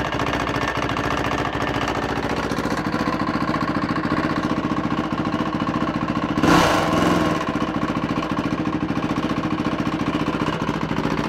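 Yamaha WR450's single-cylinder four-stroke engine idling with a steady, fast pulsing, and a short louder blip about six and a half seconds in. It is making the bad knocking noise that the owner takes for a failing big end and connecting rod, calling for a rebuild.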